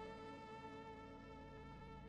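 Faint background music: one long held note with many overtones.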